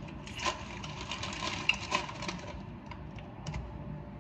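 Close-up eating noises: a dense run of quick, crackly clicks from chewing and handling food, thinning out after about two and a half seconds.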